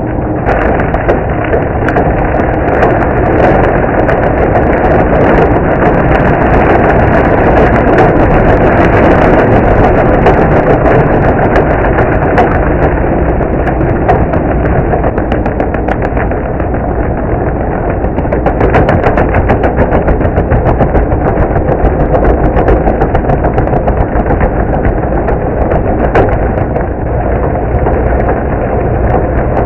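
Remote-control stump grinder running hard: a loud, steady engine drone with many small sharp ticks over it, its level swelling and easing a few times.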